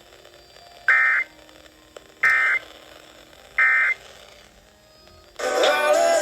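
Emergency Alert System end-of-message data tones: three short, identical buzzing bursts of digital data, about a second and a half apart, marking the end of the alert. Near the end a louder sound with several steady pitches cuts in.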